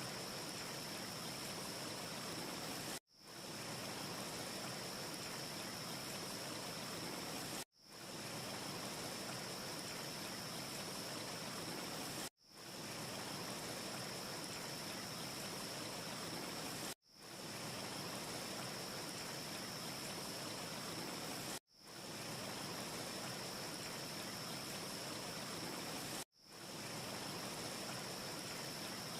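Steady, even hiss with a faint high whistle running through it, with no separate crackles. It is a short ambience loop that cuts out abruptly and fades back in about every four and a half seconds, six times over.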